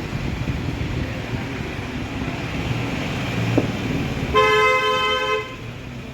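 Vehicle horn honking once for about a second, a two-note tone, over a steady rumble of engine and traffic noise.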